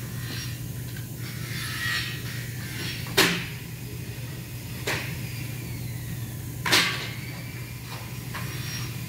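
Three sharp knocks of aluminium window profiles being handled, ringing briefly, over a steady low hum of workshop machinery.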